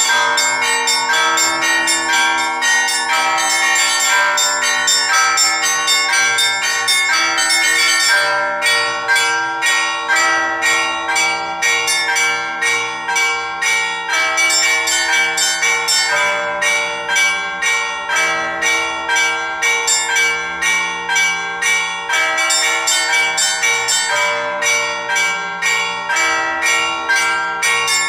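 Orthodox church bells, seven in the belfry, rung automatically by an electronic bell-ringing system in a weekday peal. The small bells chime in a rapid, dense flurry over the deeper bells, then about eight seconds in they settle into a steadier, evenly spaced pattern of strokes.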